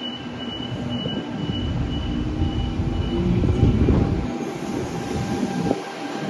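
Passenger train moving past on the rails, its low rumble building to a peak about four seconds in and then fading, with a thin high tone early on.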